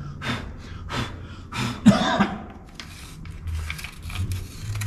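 A man clearing his throat with a cough about two seconds in, among several short, sharp sounds.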